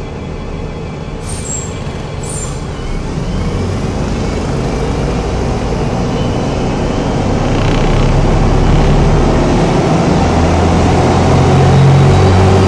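City bus engine heard from inside the bus, moving off and gathering speed, its low drone growing steadily louder. Two short high-pitched squeaks come about one and two seconds in.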